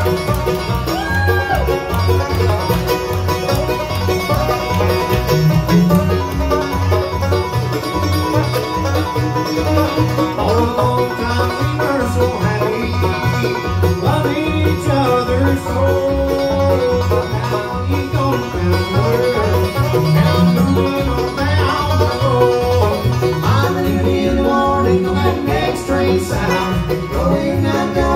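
Bluegrass band playing live: banjo, mandolin, acoustic guitar and plucked upright bass, the bass keeping a steady beat.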